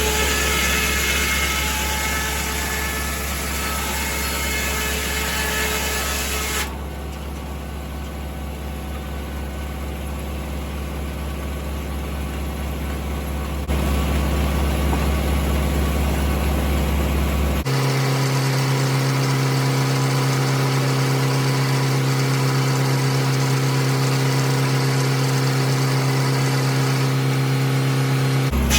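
Tractor engine running steadily, driving a 1950 Corley circular sawmill. The sound changes abruptly several times, dropping at about a quarter of the way through and getting louder again past halfway.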